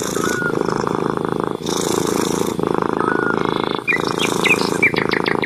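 Cat purring loudly and steadily, the purr breaking briefly about every second as it breathes. Small birds chirp in the background, a quick run of chirps near the end.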